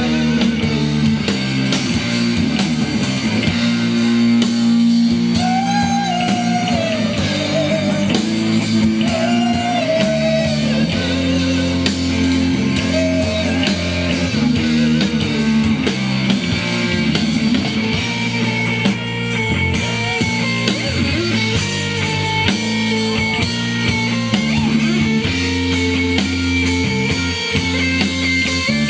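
Live rock band playing: electric guitar over a drum kit, held chords with a wavering lead line on top.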